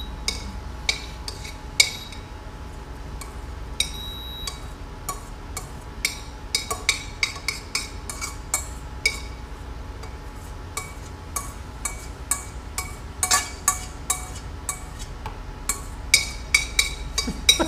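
A metal utensil scraping and tapping against a stainless steel saucepan while sautéed onion and garlic are scraped out into a blender jar: irregular sharp clinks with a short metallic ring, coming more often near the end. A low steady hum sits underneath.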